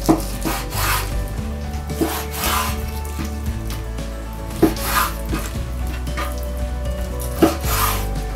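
A kitchen knife cutting raw chicken thigh into pieces on a wooden cutting board. It knocks on the board four times, each knock followed by a short scraping swish of the blade, over steady background music.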